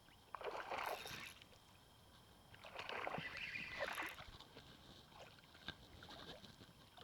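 Pond water swishing and sloshing around the legs of a wading angler, in two swells of about a second each, the first near the start and the second around the middle, then fainter water movement.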